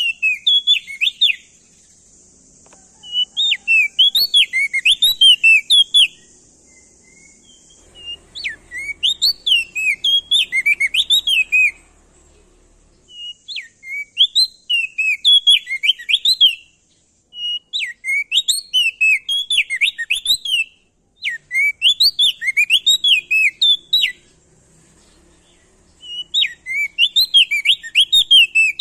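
Crested dark-eye (opior jambul, also called prenjak daun) singing loudly: about seven phrases of fast, swooping whistled notes, each lasting a couple of seconds with short pauses between, over a faint high hiss.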